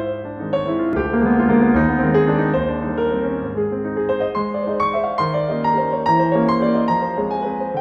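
Background piano music, notes played one after another.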